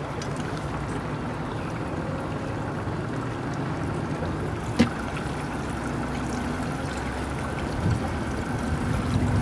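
Steady low rumble of a small fishing boat on the water, with one sharp click about halfway through.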